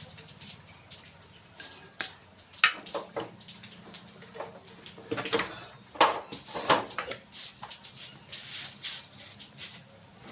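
Irregular metallic clinks and knocks of hand tools and parts as a motorcycle's rear wheel is being taken off, with the sharpest knocks about two and a half seconds and six seconds in.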